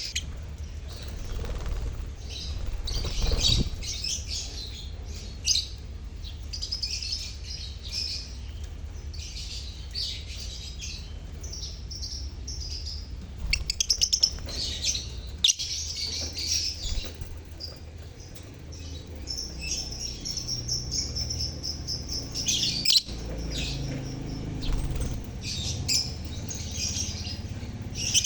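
A colony of lovebirds (Agapornis) chattering together in an aviary: many rapid, overlapping high chirps that carry on without a break, over a low rumble.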